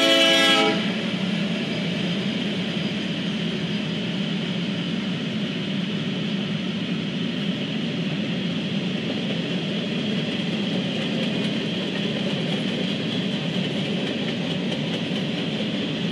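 A freight train's air horn cuts off under a second in. After that comes the steady rumble of the train passing: diesel locomotive and freight cars rolling over the rails.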